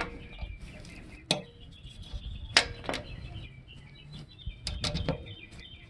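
A few sharp clicks and knocks of small parts and tools being handled during fuel pump reassembly: single knocks about a second and a half in and near the middle, then a quick cluster near the end. Birds chirp faintly in the background.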